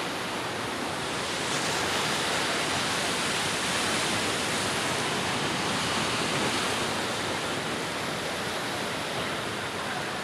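Rough sea: surf breaking continuously, a steady rush of noise that swells a little in the middle.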